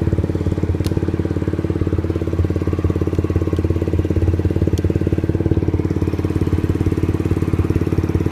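SkyTeam Urban 50cc motorbike's small single-cylinder engine idling steadily, with a rapid even beat and no revving.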